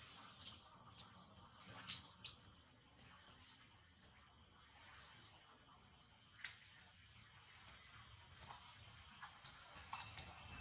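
Steady, high-pitched insect chorus holding two continuous shrill tones, with a few faint brief ticks scattered through it.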